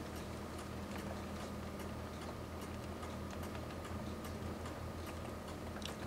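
Raindrops ticking irregularly on a hard surface, several a second, over a steady low rumble.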